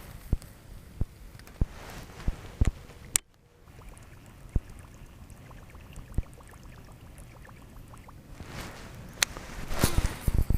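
A topwater plopper lure being cast and reeled in on a pond: scattered sharp clicks and a run of quick faint ticks from the reel, with the lure plopping and gurgling on the water, and a louder swishing rush near the end.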